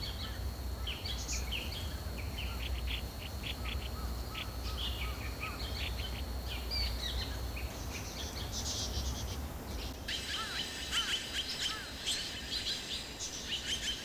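Forest birds calling: short chirps and whistles over a steady high thin tone. About ten seconds in, a denser chorus of calls begins, including short arching notes.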